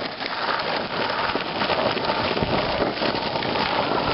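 Longboard wheels rolling steadily over asphalt, a continuous hiss.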